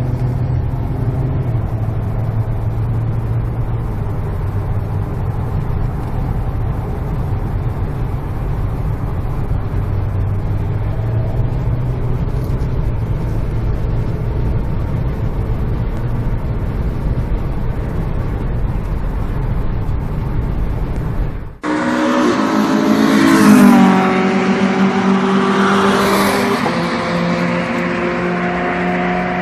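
An Audi TT's engine heard from inside the cabin at speed on track: a steady low drone that rises and falls slightly with the throttle. About 21 seconds in it cuts to cars going flat out along a circuit straight, engine notes sweeping down in pitch as they pass, the loudest about two seconds after the cut and another a couple of seconds later.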